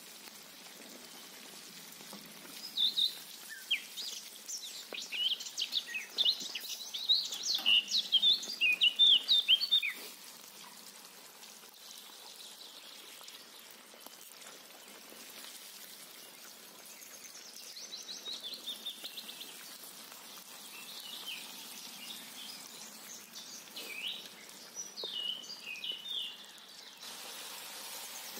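Oil sizzling steadily as potato chunks deep-fry in a kazan, with a small bird singing quick high chirps over it, in two long runs.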